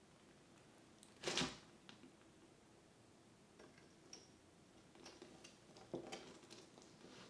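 Argus monitor feeding on a hamster pup: scattered soft clicks, knocks and scrapes of its jaws and the prey against the tub floor, with louder knocks about a second in and again near six seconds.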